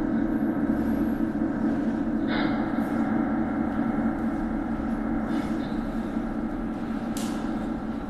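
A steady droning soundscape, several tones held together with a heavy low hum, at an even level like a machine or train running. A few brief sharp sounds cut through it about two, five and seven seconds in.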